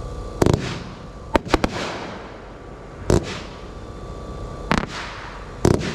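A 500-gram consumer fireworks cake firing its shots, with sharp bangs about once a second, some coming in quick clusters of two or three, each followed by a fading trail of noise.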